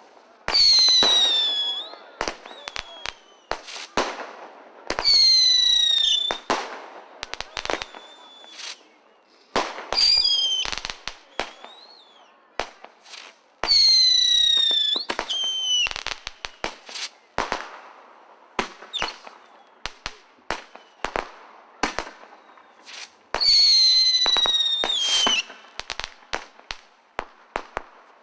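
Fireworks display: about five shots go up whistling, each whistle a second or so long and dropping slightly in pitch, amid many sharp bangs and cracks of bursting shells.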